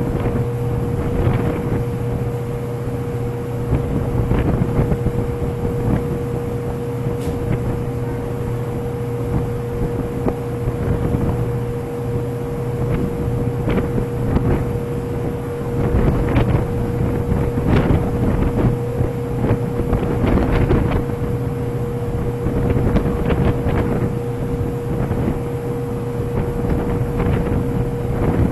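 Steady machinery drone aboard the JOIDES Resolution drillship by its drill rig, a constant low hum with a steady higher tone, with irregular gusts of wind buffeting the microphone.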